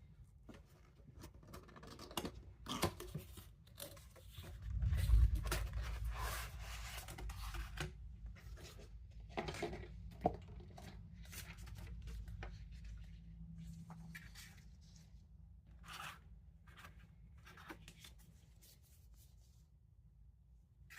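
A cardboard-and-plastic toy box being opened by hand: irregular tearing, scraping and crinkling with scattered clicks, loudest about five seconds in.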